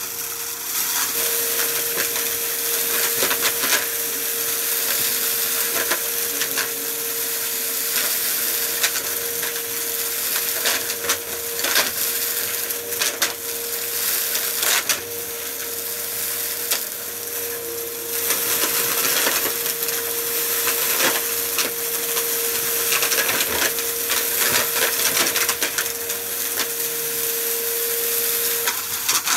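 Bagless upright vacuum cleaner running with a steady whine, crackling and rattling as it sucks up a pile of dry debris (crumbs, dirt clumps and lint) from carpet.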